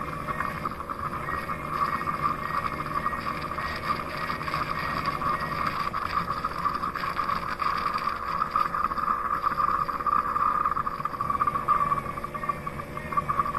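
Roomba Max 705 Combo robot vacuum-mop system running a motor with a steady whir and a low hum underneath, unbroken throughout.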